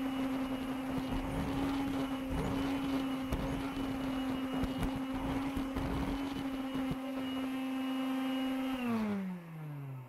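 Makita CL108FD 10.8 V cordless stick vacuum running with a steady motor whine, its floor nozzle making an uneven low rumble as it is pushed over carpet for the first several seconds. Near the end the motor cuts out and winds down, its pitch falling.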